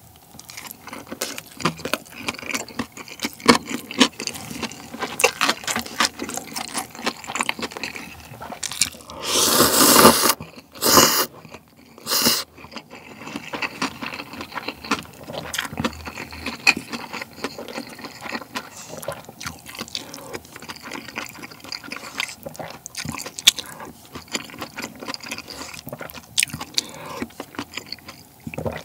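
Close-miked chewing of a mouthful of tuna-mayo kimbap, with small wet mouth clicks. About nine seconds in comes a loud slurp of about a second and a half, then two shorter slurps, from a cup of spicy cup ramen, followed by more chewing.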